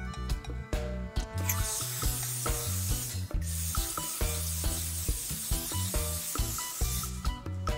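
Aerosol parts cleaner sprayed through a straw nozzle at the bottom of a sliding door: a long hiss starting about a second and a half in, with a brief break in the middle, stopping near the end. Background music plays throughout.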